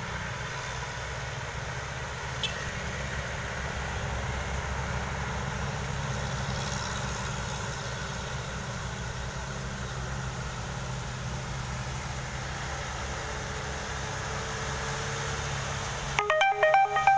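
Engines of laden light cargo trucks running as the vehicles approach, a steady low drone. About sixteen seconds in, as the lead truck comes close, a loud multi-tone musical horn sounds a quick run of several different notes.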